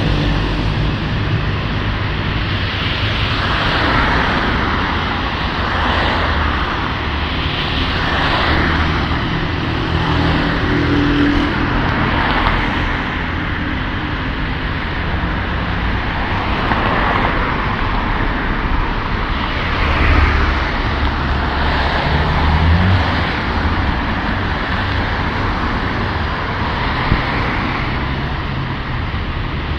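Road traffic on a city street: cars passing one after another, each coming up and fading as a rush of tyre and engine noise, over a steady low engine hum.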